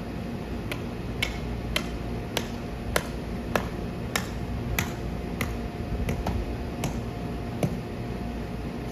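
The electric blower keeping an inflatable bounce house up runs steadily, with a series of sharp clicks or taps over it, about one and a half a second, that stop a little before the end.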